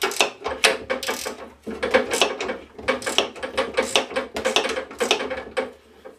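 Ratcheting wrench clicking in quick strokes, about three a second, as it undoes a bolt on a lawnmower's handle bracket; the clicking stops near the end.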